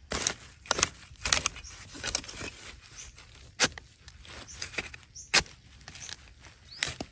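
A long-handled digging blade chopping into the base of a wild bamboo shoot: about seven sharp strikes at uneven intervals.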